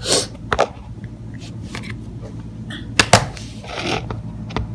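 Handling noise from a phone being set up by hand: fingers rubbing and knocking against the phone close to its microphone, with sharp knocks just after the start, about half a second in and about three seconds in. A steady low hum runs underneath.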